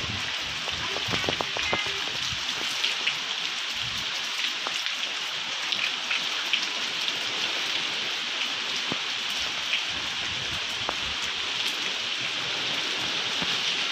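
Steady heavy rain and wind of a cyclonic storm, a constant hiss of rain scattered with small drop ticks. Low gusts rumble through in the first few seconds, then the rain goes on evenly.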